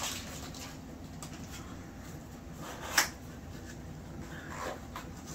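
Small cardboard box being opened by hand: quiet handling and rustling of packaging, with one sharp snap about three seconds in, over a steady low hum.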